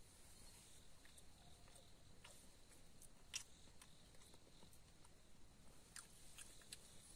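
Near silence: a faint steady hiss with a few scattered soft clicks and ticks, the clearest a little over three seconds in.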